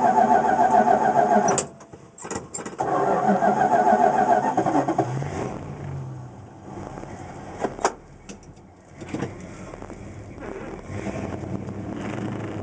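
1969 Plymouth Road Runner's 440 V8, heard from inside the cabin: the engine runs loudly, cuts out about two seconds in, catches again about a second later with a quick rev, then runs on more quietly. A single sharp click near the end.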